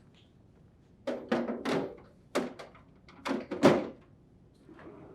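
Plastic ice container knocking and sliding into the refrigerator's freezer tray: a string of short plastic knocks and scrapes as the bin is set in place.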